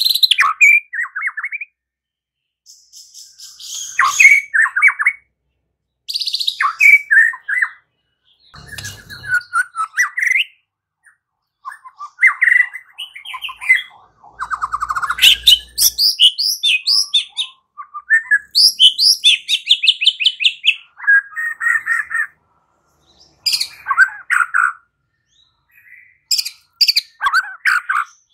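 White-rumped shama (murai batu) singing in short, varied phrases of rapid trills, chatters and clear whistles, with pauses of a second or two between phrases.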